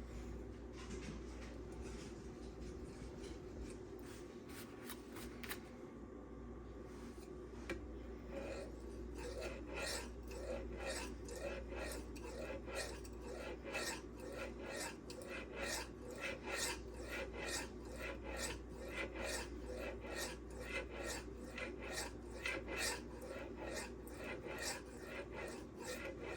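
An M390 steel knife blade is stroked back and forth across a Venev diamond resin 3/2 micron sharpening stone, giving a steady rasping scrape. The strokes are faint at first; from about eight seconds in they come evenly, about two a second.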